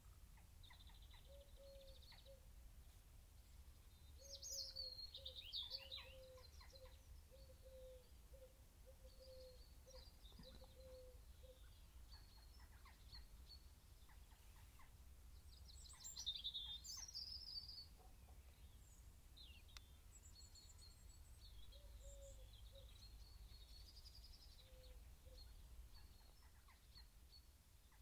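Faint birdsong: scattered high chirps and trills, with two louder bursts of song, over a quiet low room hum.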